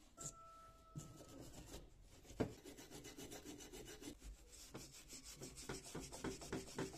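Hand wire brush scrubbing rust off the cast metal housing of a self-propelled mower's drive gearbox, in faint repeated scraping strokes that grow quicker, about four a second, near the end. A single sharper knock about two and a half seconds in.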